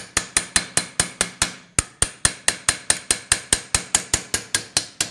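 Hammer rapidly tapping a steel pin punch held against the clutch nut of a Derbi Variant Start 5 moped engine, about five sharp metallic taps a second, each ringing briefly. The taps are shocking the tight nut loose without an impact wrench.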